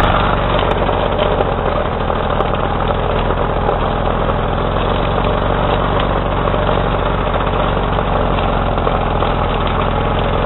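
Lawn-Boy Loafer lawn tractor's 85cc two-stroke engine running at a steady speed while the tractor is driven.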